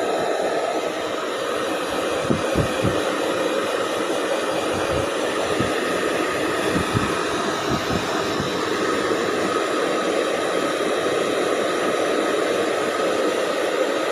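Electric hair dryer blowing steadily, with a few low thumps in the first half.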